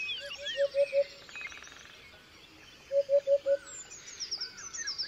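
Birds chirping and calling, many quick high chirps and trills over a lower call of four or five quick notes that comes in short runs, twice.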